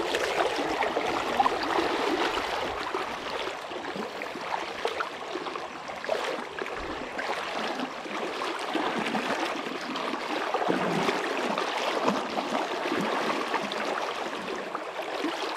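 River current running over a shallow riffle: a steady rushing wash of moving water.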